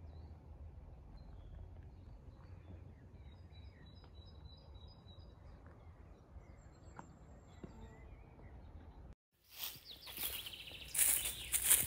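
Faint birds chirping over quiet outdoor ambience. After a brief cut, footsteps crunch and rustle through dry fallen leaves, loud and irregular, over the last couple of seconds.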